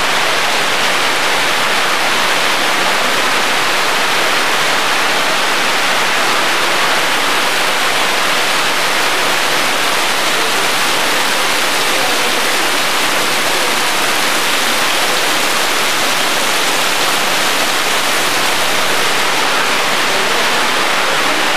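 Heavy tropical downpour: a steady, even rush of rain pouring down and splashing on a concrete yard.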